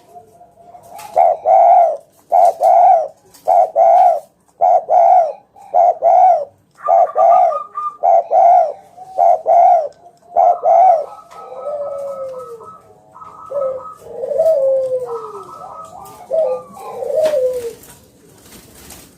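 Spotted dove (tekukur) cooing: a quick run of about a dozen short, loud coos, then slower coos that slide down in pitch, with higher steady notes overlapping in the second half.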